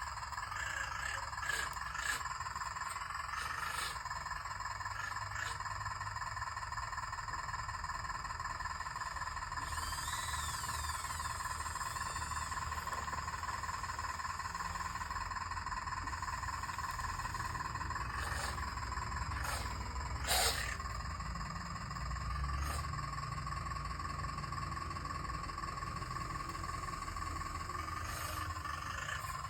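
Radio-controlled excavator's small electric motors whining steadily at one pitch, with a few sharp clicks and knocks, the loudest about 20 seconds in.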